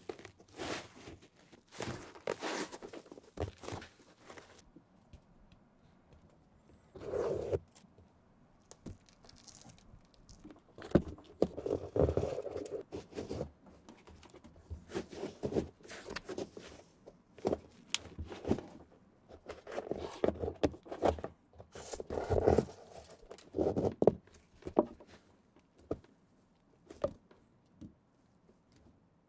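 Hand stitching a sneaker sole: white thread is drawn through the stitch holes of an Air Jordan 1 rubber cupsole sidewall and pulled tight. The result is irregular rubbing, scraping and ticking sounds, with several longer pulls through the middle and later part.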